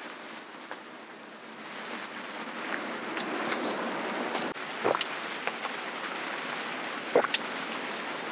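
Strong wind and rain rushing against a dome shelter tent, growing louder about two seconds in and then holding steady, with a few sharp clicks.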